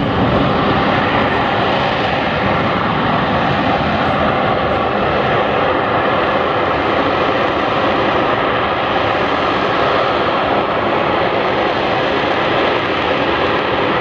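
AV-8B Harrier II Plus's Rolls-Royce Pegasus turbofan running at high thrust as the jet hovers just after a vertical takeoff: a loud, steady jet noise with faint steady whining tones.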